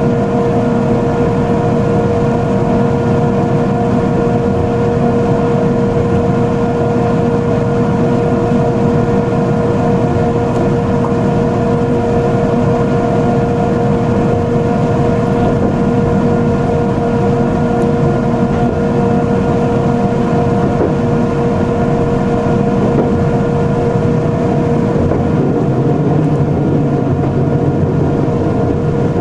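Electric train running steadily, heard from on board: a continuous rumble of running gear with a constant electrical hum tone on top.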